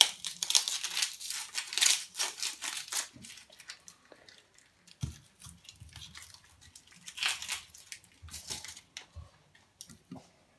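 Dry onion skin crackling and tearing as it is peeled off by hand, in bursts near the start and again later, with a soft knock on the wooden chopping board about five seconds in.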